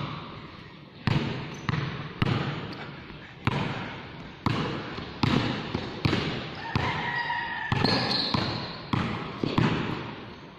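Basketball dribbled on a hard court floor: sharp bounces at an uneven pace, about one to two a second, each ringing on briefly in the roofed court.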